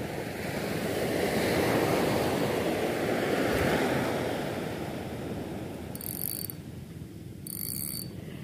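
Surf washing on a pebble beach, swelling and then easing off. Near the end come two short whirring bursts from a Shimano FX2500HG spinning reel as its handle is cranked.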